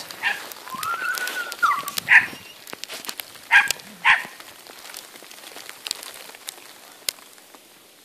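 A dog whining briefly, then giving a few sharp barks and yips, over faint scattered ticks.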